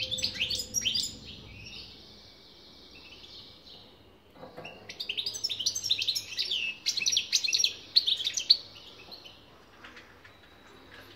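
European goldfinch singing: bouts of rapid, twittering chirps, one ending about a second in and a longer one from about four and a half to eight and a half seconds in, with softer twittering between them.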